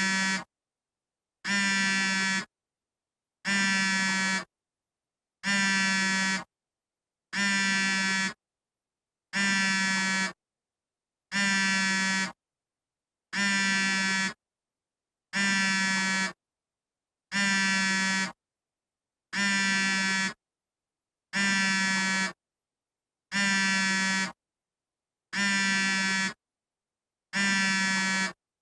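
iPhone vibrating for an incoming call: a low, steady buzz lasting about a second, repeating about every two seconds in a regular on-off pattern, with silence between the buzzes.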